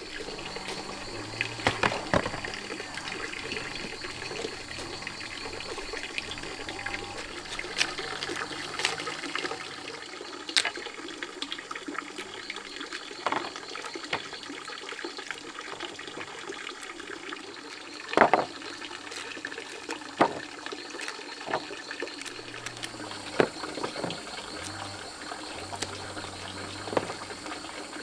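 Water running steadily, with scattered sharp clicks and knocks over it.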